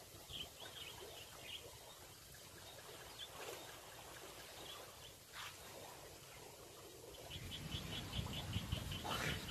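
Faint chirping calls of small animals: a few scattered chirps early, then a quick run of evenly spaced chirps, about five a second, near the end, with a low rumble joining in over the last couple of seconds.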